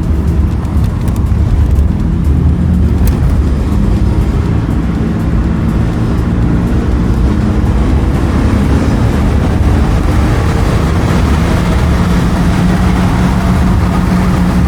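Honda car being driven: steady engine hum and road noise heard from inside the cabin, growing a little louder in the second half.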